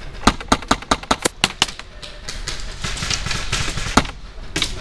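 Airsoft guns firing: a rapid string of sharp cracks, about eight in a second and a half, then two single shots near the end.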